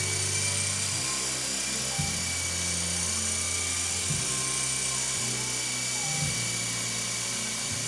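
Helimax Axe CX Micro coaxial electric RC helicopter hovering: its small electric motors and twin rotors make a steady high-pitched whine.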